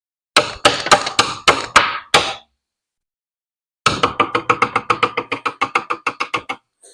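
Two runs of sharp, hard knocks: about seven strikes, then after a short pause a faster run of about twenty that gradually grows weaker.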